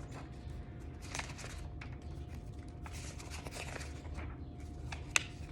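Paper rustling as the pages of a booklet are handled and turned, with one sharp click about five seconds in, over a steady low background hum.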